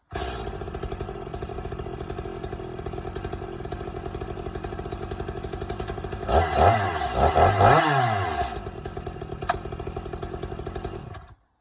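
Stihl MS 230 C-BE two-stroke chainsaw engine running warm, just started with its easy-start spring starter. It idles steadily, is revved in three quick blips about six to eight seconds in, settles back to idle, then cuts off suddenly near the end.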